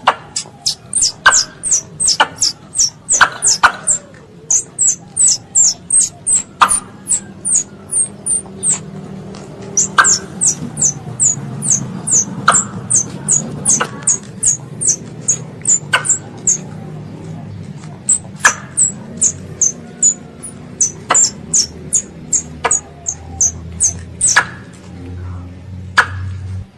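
A young squirrel calling its mother: a fast series of short, sharp, very high-pitched chirps, about three to four a second, in runs broken by brief pauses.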